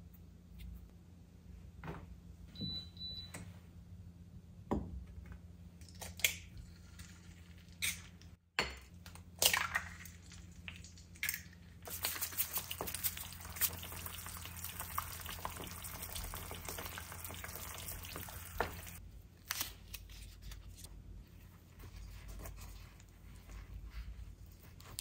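Scattered clicks and knocks of objects being handled, then water running for about six seconds from about halfway through, cutting off sharply.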